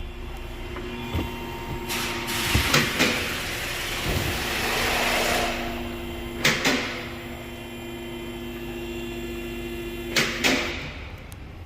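Power window being cycled by its new switch: sharp switch clicks and knocks, then the window motor and glass sliding for a few seconds, with more paired clicks about six and ten seconds in.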